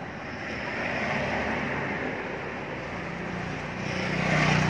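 A motor vehicle going by: a steady engine hum and rushing noise that grow louder toward the end.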